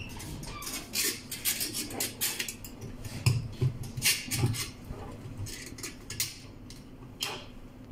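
Irregular light clicks and scrapes of small metal parts being handled as the cooling fan is screwed onto an air-cooled diffusion pump's body.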